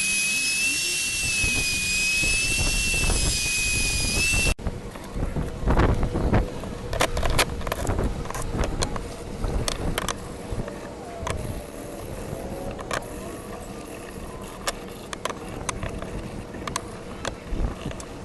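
Handheld wood router running at high speed with a steady high-pitched whine while cutting a border into a wooden sign. The whine cuts off abruptly about four and a half seconds in, followed by scattered clicks and knocks over a low rumble.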